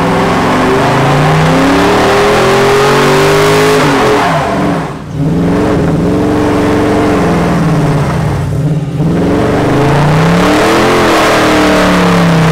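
Dodge Charger V8 held at high revs in a burnout, rear tyres spinning. The engine note swings up and down, drops briefly around 5 s and again around 9 s, then climbs back.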